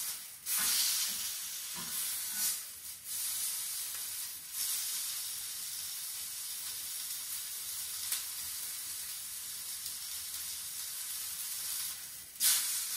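Rack of lamb searing in a hot pan, the fat sizzling steadily, with a few brief louder surges of sizzle, the last near the end.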